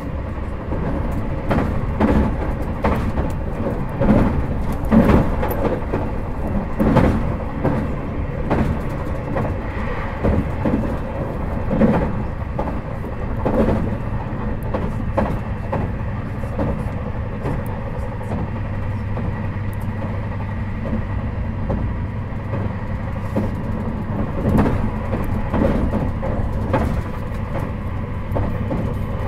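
Running noise heard inside a JR Hokkaido 721 series 4000-subseries electric motor car with a Toshiba GTO inverter, travelling at speed: a steady rumble with a few steady tones, and irregular knocks and clatter from the wheels on the track.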